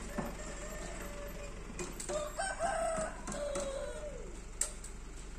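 Rooster crowing once: a long call that starts about two seconds in and falls away in pitch at its end. A few sharp clicks sound around it, the loudest near the end.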